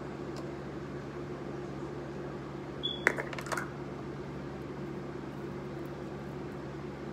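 Steady low mechanical hum, with a quick cluster of sharp clicks and taps about three seconds in.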